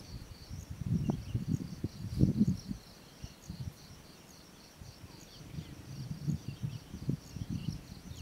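Insects chirping in a steady, evenly pulsed high trill, over soft irregular low knocks and rustles of gear being handled on the ground.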